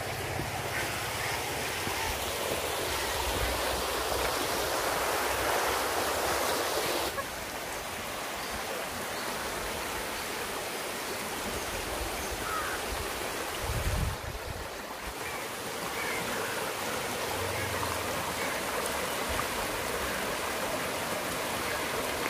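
Shallow stream rushing over rocks and spilling over a low concrete step beneath a small culvert bridge: a steady, even rush of running water.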